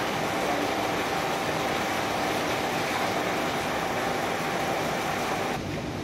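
Steady mechanical running noise with a faint hum, dropping somewhat near the end.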